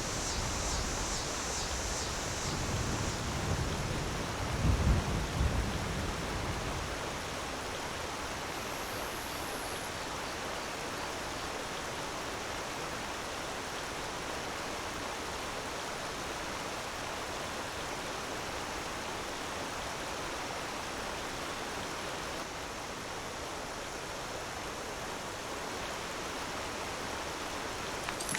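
Waterfall: falling water rushing steadily, with a burst of low rumbling about five seconds in.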